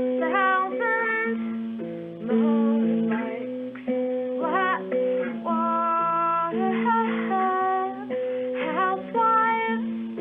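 Background music: plucked acoustic guitar with singing over it.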